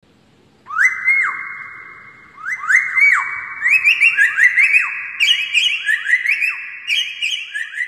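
Cikukua timor, a friarbird, calling loudly from its cage: a series of rising-then-falling whistled notes, each leaving a long ringing tail. The notes start singly, then come faster and overlap from about two and a half seconds in.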